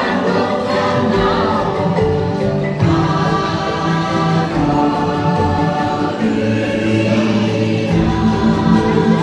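Ride soundtrack of choral music: a choir singing long held notes over a musical backing.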